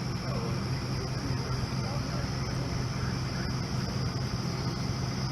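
A steady low mechanical hum with a continuous high whine over it and faint, indistinct voices in the distance.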